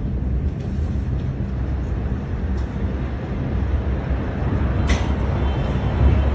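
A low, steady rumble, with a sharp click about five seconds in.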